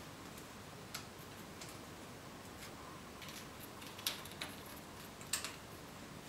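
Faint, scattered small metallic clicks as hex bolts are threaded by hand into a bicycle stem's handlebar clamp. The loudest two come about four seconds and five and a half seconds in.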